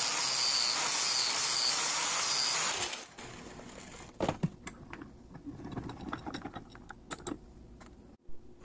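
Angle grinder running steadily as it grinds off the protruding indicator on a metal gas timer valve held in a vise; it cuts off abruptly about three seconds in. After that come scattered light clicks and taps, with one louder knock, as the metal parts are handled.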